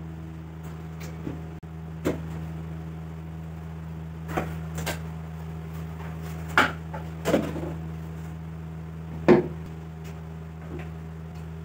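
Cardboard box being handled and opened, with short knocks as the box and electric hand planers are set down on a wooden tabletop; the loudest knock comes about nine seconds in. A steady low hum runs underneath.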